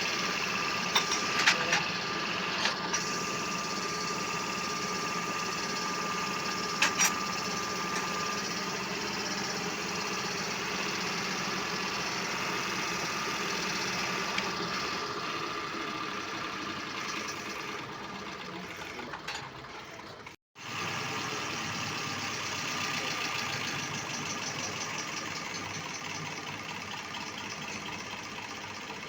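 Toyota 2C four-cylinder diesel engine running steadily, its injection pump repaired. A few sharp clicks come in the first seconds, and again once about seven seconds in. The sound cuts out briefly about twenty seconds in.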